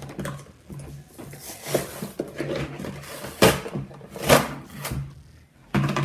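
Toy packaging being handled and opened, with several short scraping and rustling noises.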